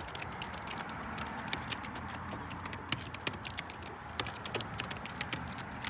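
A flock of racing pigeons moving about close by on hard ground: many light, irregular clicks and taps from their feet and beaks, over a steady background hiss.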